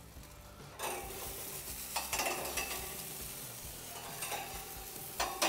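Minced-meat skewers sizzling on a hot gas grill grate, the hiss starting about a second in. Metal skewers clack against the grate twice, once about two seconds in and more loudly near the end.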